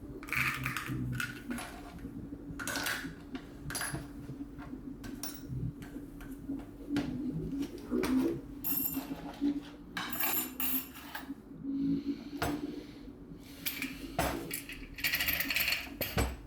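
Small steel parts of a BMX freecoaster hub being handled on a hard surface: irregular metallic clinks and taps, some with a short high-pitched ring.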